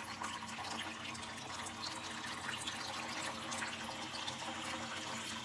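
Kitchen tap running steadily into a clear plastic orchid pot filled with bark, the water soaking through and splashing out of the pot's bottom into a stainless steel sink.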